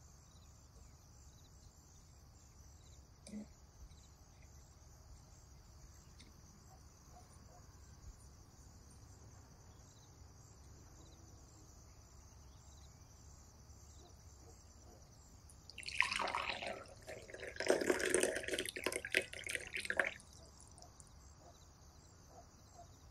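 Hot water poured into a glass tumbler onto a spoonful of salt, a splashing, trickling pour lasting about four seconds near the end. Before it, near silence with a faint steady hiss.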